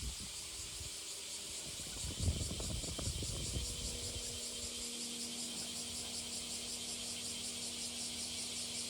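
Insects, likely a summer cicada chorus, shrilling steadily with a fast pulsing texture, with a few low knocks about two seconds in and a low steady hum coming in about halfway.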